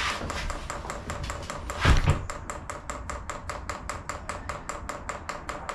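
Diesel air heater's fuel dosing pump ticking rapidly and evenly, about five clicks a second, while it is primed to draw fuel through the line to the heater. A single louder thump about two seconds in.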